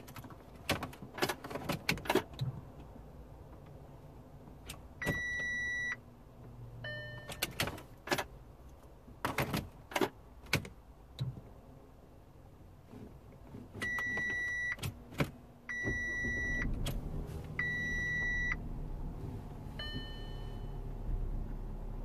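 Clicks and handling noises, a few short electronic beeps at one pitch, then about two-thirds of the way through the Audi A4's 1.8 petrol four-cylinder starts and runs at a low, steady idle. The engine has an active cylinder 4 misfire (P0304) that is felt rather than heard.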